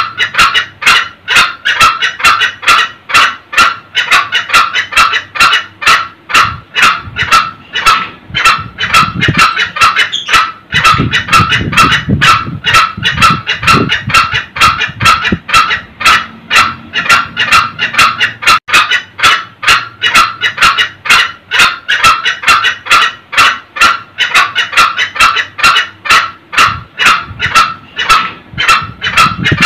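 Green junglefowl cackling ('ngekek'): an unbroken run of short, sharp 'kek' calls, about three or four a second. It is the call used as a lure for wild junglefowl cocks.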